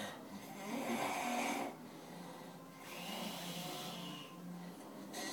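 A man snoring loudly in his sleep: a loud snore lasting about a second and a half near the start, then a softer snore with a faint whistle about three seconds in, and another starting near the end.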